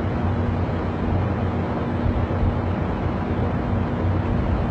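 Ship's machinery running with a steady low hum under an even wash of noise.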